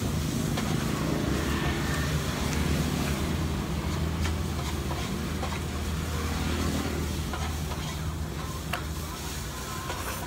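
Steady low engine hum of street traffic, easing off after about eight seconds, with a few faint clicks.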